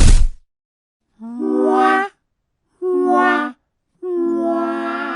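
A loud, sudden burst that drops in pitch at the very start, then three held musical notes in a row, the last the longest, wavering and fading out.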